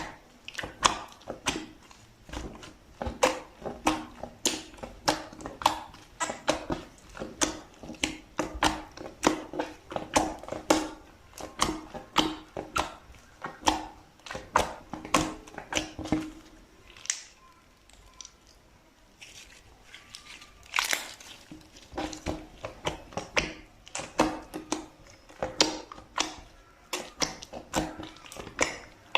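Slime being squished and pressed by hand, giving a dense run of irregular sticky pops and clicks. The pops thin out for a few seconds past the middle, then pick up again.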